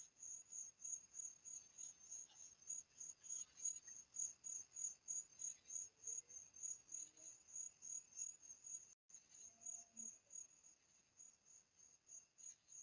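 Crickets chirping faintly: one high chirp repeated evenly, about three times a second.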